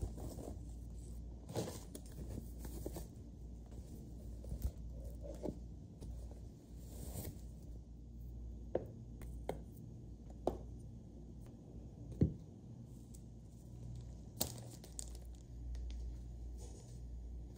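Groceries being unpacked from a reusable shopping bag: the bag and plastic packaging rustle and crinkle, with light knocks as jars and packages are set down on the counter, the sharpest about twelve seconds in.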